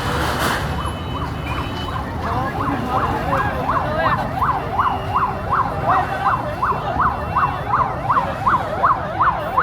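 Emergency vehicle siren in fast yelp mode, its pitch rising and falling about three times a second, over a steady low rumble.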